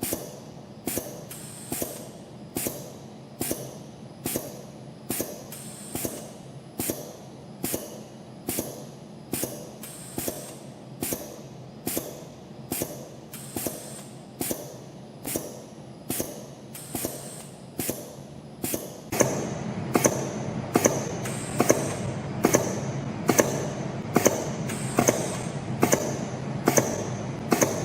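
CF-303 CNC spring coiling machine making tiny 0.05 mm wire compression springs. A sharp click comes about once every 0.8 seconds, one for each spring cycle, over a steady machine hum. About 19 seconds in, the clicks and hum become louder.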